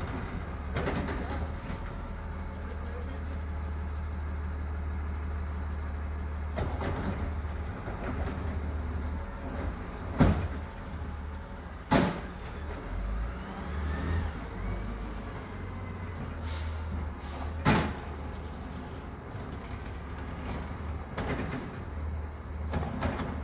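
A steady low motor-vehicle rumble, with a few sharp knocks about ten, twelve and eighteen seconds in.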